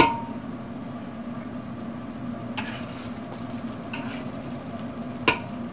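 A metal utensil clinking a few times against the wok and the plate as sauced fish pieces are laid on the plate. The first clink rings briefly, and a sharper one comes near the end, over a steady background hum.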